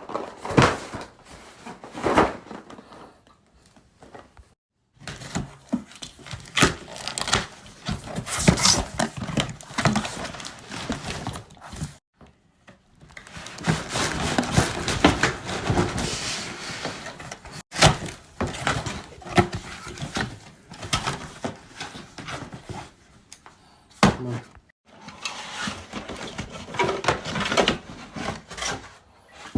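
Packaging being opened and handled: rustling, scraping and irregular knocks and clicks of cardboard and plastic wrapping, broken by a few short silences.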